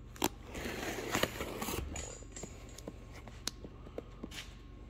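Folding knife blade scraping and slicing through packing tape along a cardboard box seam. The cutting is loudest in the first couple of seconds, with a few sharp clicks where the blade catches, then fainter ticks.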